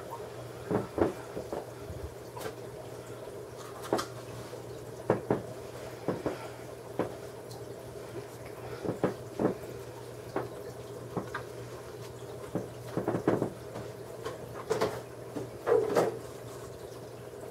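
Aquarium filter running: a steady low hum, with water trickling and dripping in irregular little splashes.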